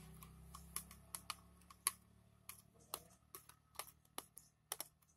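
Sticky homemade slime being stirred and worked, giving irregular sharp little clicks and pops, about two or three a second.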